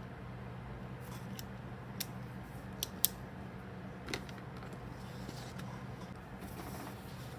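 Scissors snipping paper: a few sharp snips between about two and four seconds in, then soft paper rustling near the end, over a steady low hum.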